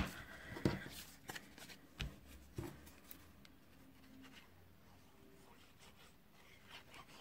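Patterned paper and card being handled and pressed flat by hand on a cutting mat: soft rustling with about five light taps in the first three seconds, then only faint sound.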